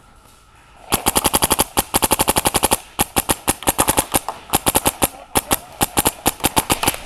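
Macdev Clone GTi paintball marker firing rapid strings of shots, about ten a second, starting about a second in, with short breaks between strings.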